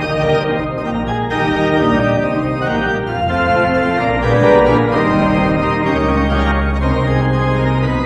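Arena organ playing the goal-celebration tune in sustained, changing chords, with a held low bass note coming in about six seconds in.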